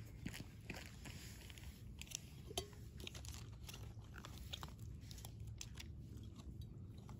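A cat crunching dry kibble from a bowl: faint, irregular crunches and clicks of chewing.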